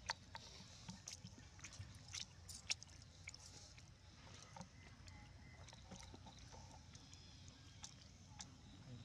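Near silence: faint outdoor ambience with scattered small clicks and ticks over a low rumble.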